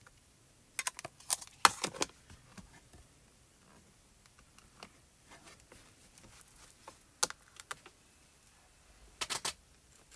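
Sharp plastic clicks and taps of ink pad cases being opened and handled while inking a stamp: a cluster of clicks about a second in, a single click around seven seconds, and another quick cluster near the end.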